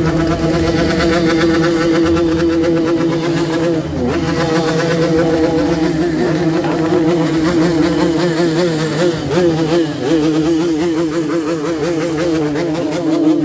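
Motorcycle engines running loud and steady, revved again and again in the later part so the pitch rises and falls in quick waves.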